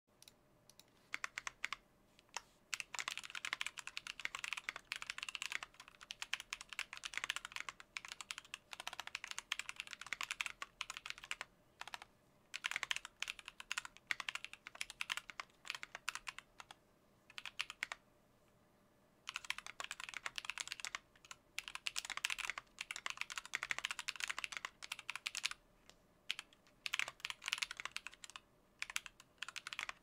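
Fast typing on a Tofu65 mechanical keyboard with a brass plate, PBT keycaps and stock Holy Panda tactile switches: dense runs of key clacks with short breaks, the longest about two seconds a little past the middle.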